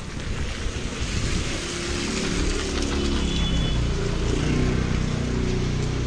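Street ambience in a busy market lane: a broad rushing hiss with a low engine-like hum underneath that cuts off suddenly just after the end.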